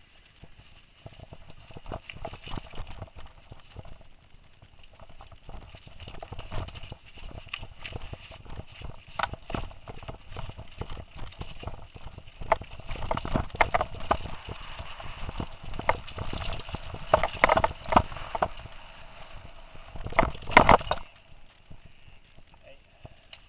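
Mountain bike clattering over a rocky trail: irregular knocks and rattles from the wheels and frame hitting rocks, growing busier and louder about halfway through, with the hardest hits near the end before it quiets down suddenly.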